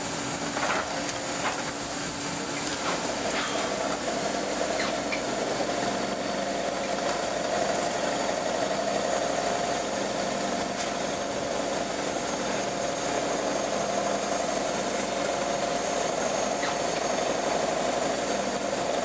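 Diesel engine of a JCB JS210 tracked excavator running steadily. About three seconds in, a higher hum joins it and holds steady, with a few faint clicks before it.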